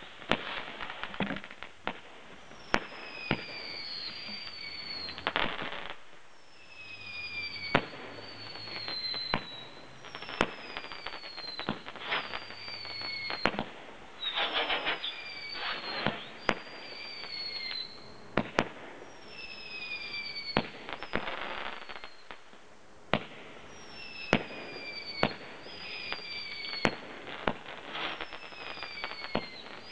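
Weco Lighthouse 35-shot firework battery firing: a run of sharp bangs, whistling shots whose whistle falls in pitch over about a second every couple of seconds, and stretches of dense crackling.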